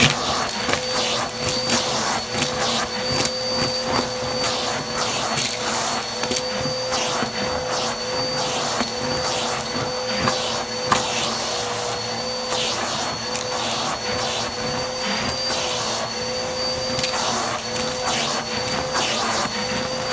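Vacuum cleaner running steadily, its motor giving a constant whine, with frequent short clicks and knocks throughout.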